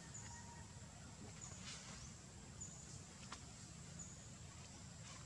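Faint outdoor ambience: a steady high hum with a short high chirp repeating a little more than once a second, a couple of faint squeaks or clicks, and a low rumble underneath.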